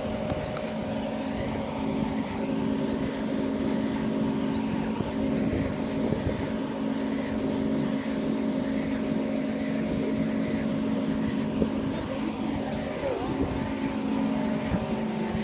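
Large electric fans running with a steady hum of several constant tones over a rushing wash of air noise.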